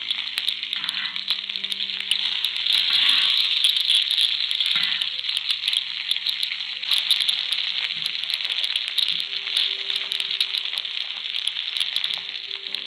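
A bone-in ribeye steak sizzling in garlic-herb butter in a cast iron skillet: a steady frying hiss full of fine crackles and spits.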